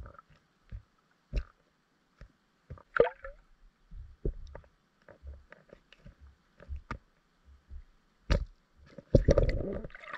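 Muffled underwater sound from a submerged camera: scattered sharp clicks and knocks over a faint steady hiss, with a louder churning rush of water about nine seconds in.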